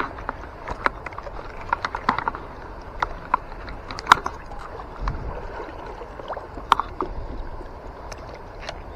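River water running and splashing, with irregular small splashes and ticks over a steady rush, and a brief low rumble about five seconds in.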